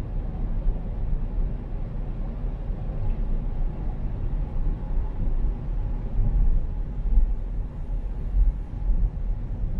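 A car driving, with a steady low rumble of road and engine noise that swells and dips a little.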